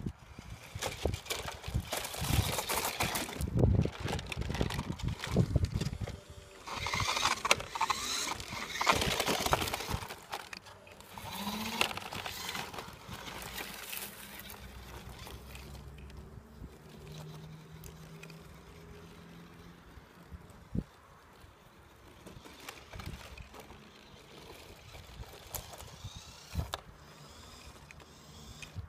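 Radio-controlled toy monster truck driving over loose gravel, its tyres crunching the stones in loud, uneven bursts. About ten seconds in, the sound drops to a quieter, steady noise as it drives across grass.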